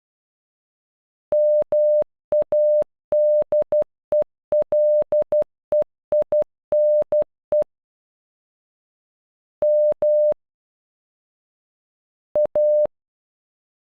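Morse code sent as beeps of a single steady pitch: the word MADELEINE (-- .- -.. . .-.. . .. -. .) spelled out as a quick run of dots and dashes. After a pause of about two seconds, the letters come one at a time with long gaps between them: M (two dashes), then A (dot-dash).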